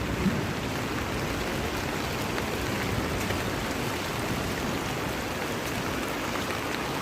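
Steady heavy rain mixed with rushing water, an even wash of noise without breaks.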